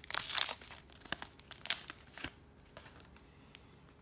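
Foil trading-card pack being torn open: one loud rip about half a second in, then a few sharp crinkles of the foil that die away after a little over two seconds.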